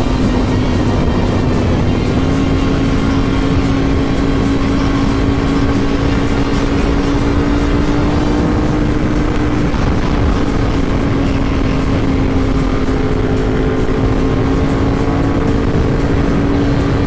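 Ducati Panigale V4 superbike engine running steadily at highway speed in sixth gear, holding a nearly constant pitch that edges up slightly about two seconds in, under heavy wind rush.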